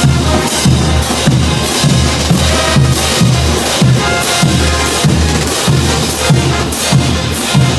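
Bolivian brass band playing a morenada on the march: massed hand cymbals clash on a steady beat over sousaphones, snare drums and bass drum, with trumpets above.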